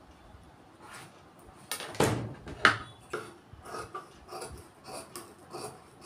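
Tailor's scissors cutting blouse fabric in short repeated snips, about two or three a second, after a couple of sharp knocks about two seconds in as the cloth and scissors are handled.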